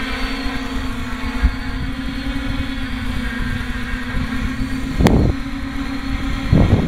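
Multirotor hexacopter motors and propellers humming steadily at one even pitch while it hovers, with wind rumbling on the microphone and two short gusts buffeting it about five seconds in and near the end.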